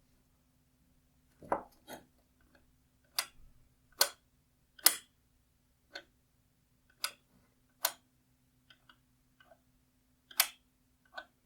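A series of about ten sharp clicks and taps at uneven intervals, from small headlight parts being handled and set down.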